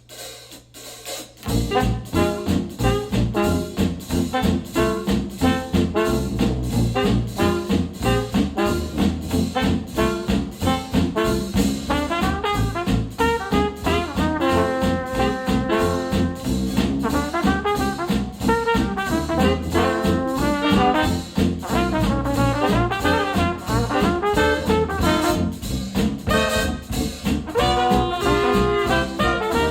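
Jazz music with horns and a steady beat, played back through KEF R3 bookshelf speakers driven by an IOTAVX SA3 integrated amplifier; the track starts about a second and a half in after a brief lull.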